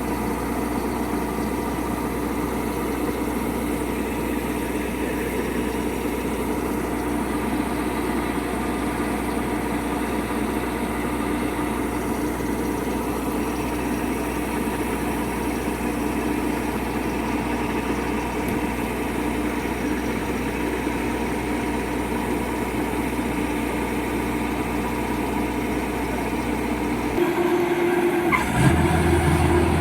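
Diesel engine of heavy farm machinery running steadily. Near the end the sound changes abruptly to a louder, deeper drone.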